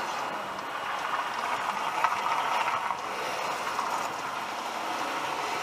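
Steady road noise of traffic passing, heard from inside a stopped car, with a single sharp click about two seconds in.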